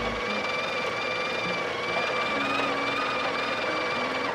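Breville Barista Touch Impress's built-in burr grinder running with a steady whine, then stopping abruptly near the end. It is grinding a top-up dose into the portafilter because the machine found the first dose too light.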